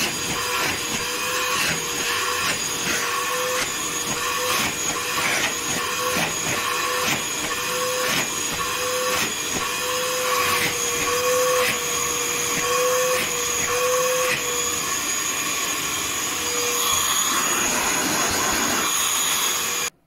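Einhell TE-VC 18/10 Li cordless wet and dry vacuum cleaner running at full power: a steady rush of air with a constant motor whine, loud but not really loud. It cuts off suddenly at the very end.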